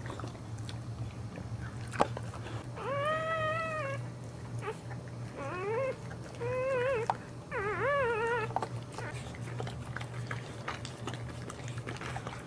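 Boxer dogs at a whelping: about four high, arching whimpers come between about 3 and 8 seconds in, over scattered wet clicks of the mother licking a newborn puppy clean.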